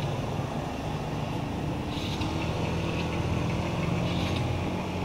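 Steady low hum of an engine running, with faint brief high chirps at times.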